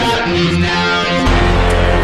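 Background rock music led by guitar, with a deep bass note coming in just over a second in.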